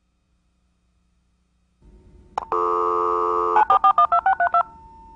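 A telephone line dialing: a click, a loud steady dial tone for about a second, then a quick run of about nine touch-tone digits, followed by a faint steady tone.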